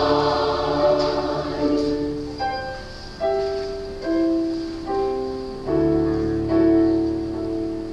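A choir's singing fades out in the first couple of seconds. A keyboard instrument then plays slow held chords over deep bass notes, changing chord every second or so.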